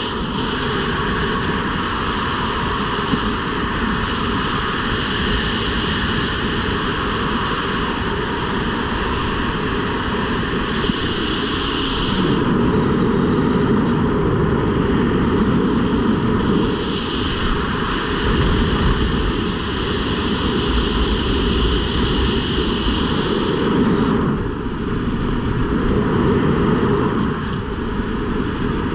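Steady rush of wind over a skydiver's camera microphone, through the end of freefall and flight under an open parachute canopy. It gets louder and deeper about twelve seconds in.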